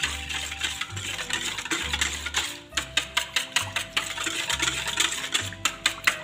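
Background music with a steady bass line, over quick clinking of a utensil against a bowl as a thin batter is stirred, the clinks coming faster about halfway through.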